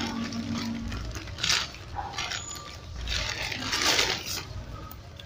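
Paper and cardboard packaging rustling and crinkling as a parcel is opened by hand and a small cardboard box is pulled out, in a few uneven bursts, the longest about three seconds in.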